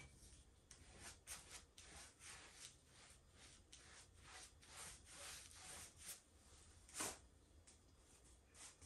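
Faint, repeated soft swishes of a paintbrush stroked across a resin-coated round tabletop, with one sharper tap about seven seconds in.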